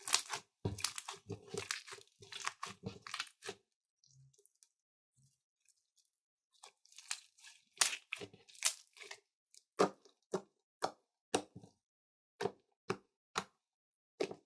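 Purple slime with small foam beads being squeezed and kneaded by hand, giving crackly, crunchy squelches. After a short lull, fingers pressing into it make a run of separate sharp pops, about two a second.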